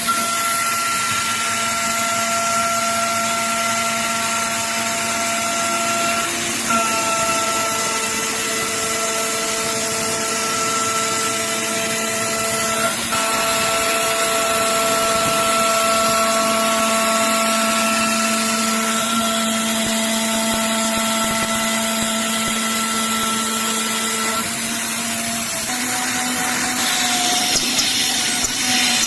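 CNC milling machine cutting aluminium: a steady high spindle whine over a hiss of cutting noise. The pitch of the whine shifts a few times, around a quarter, half and three quarters of the way through.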